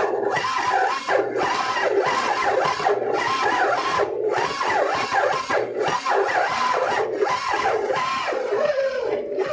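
Electric stand mixer kneading stiff pasta dough, its motor struggling under the load with a whine that keeps rising and falling in pitch as the dough drags on it.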